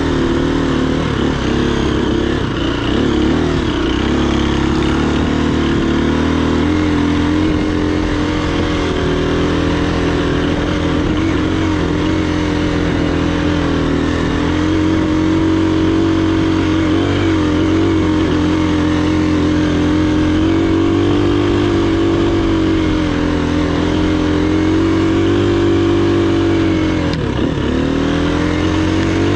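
Dirt bike engine running under throttle while climbing a rocky trail. The pitch holds fairly steady with small rises and falls. It drops sharply near the end, then comes back up.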